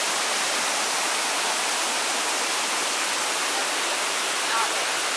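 Rushing stream water tumbling over rocks, a steady even hiss.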